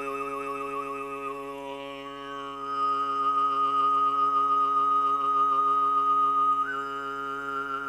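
A man overtone throat singing: a steady low drone with a high, whistle-like overtone melody above it. The whistle wavers at first, then holds one note for several seconds and steps up to a higher note near the end.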